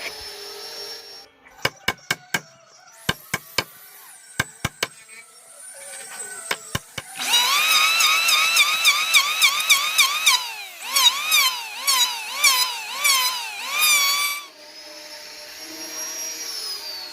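A handheld high-speed power tool carving a wooden block. First come a string of sharp knocks. Then the tool whines loudly for about seven seconds, its pitch dropping and recovering over and over as the cutter bites into the wood, and near the end it spins freely with a quieter, steady high whine.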